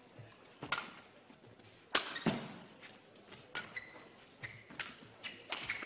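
Badminton rally: sharp cracks of rackets hitting a feathered shuttlecock about once a second, traded between the two players, with short squeaks of court shoes on the mat between the hits.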